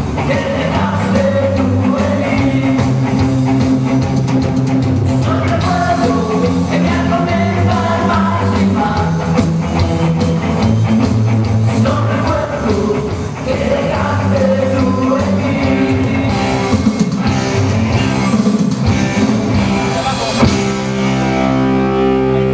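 Rock and roll music with singing and guitar. About 20 seconds in it changes to steady held notes.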